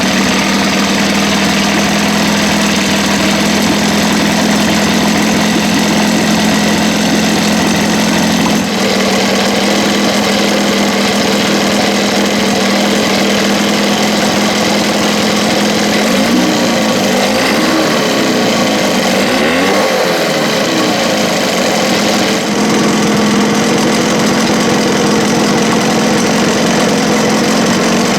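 1977 Evinrude 15 hp two-cylinder two-stroke outboard running at a low idle. Its speed drops a little about a third of the way in, then wavers up and down for several seconds before settling a little higher.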